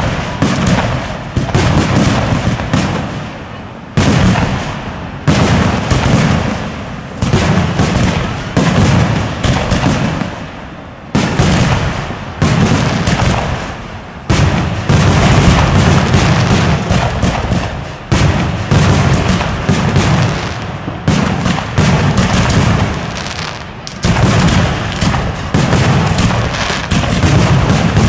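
Fireworks display: aerial shells launching and bursting in rapid succession, a dense run of sharp bangs. A fresh heavy volley hits every second or two and trails off in echoes before the next.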